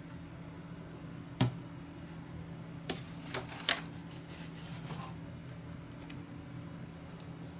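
Cardstock being handled on a craft table: a single sharp tap about a second and a half in, then a quick cluster of papery clicks and rustles between about three and five seconds. A steady low hum runs underneath.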